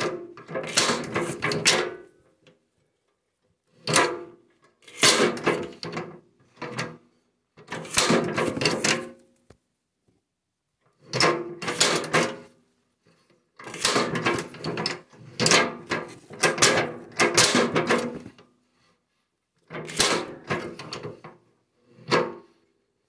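A 1910s John Deere Hoover hand-lever potato seed cutter being worked stroke after stroke. Its cast-iron plunger clanks and scrapes as it is lifted and pressed down, forcing potatoes through the knife blades. The strokes come in bursts of a second or two, every few seconds.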